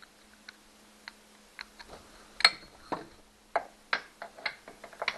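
Sharp metallic clicks and taps from a hand tool working an outboard mounting bolt. They come at irregular spacing, sparse at first, then closer together and louder from about halfway.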